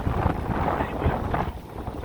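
Wind buffeting the microphone aboard an offshore fishing boat, with boat and water noise beneath it.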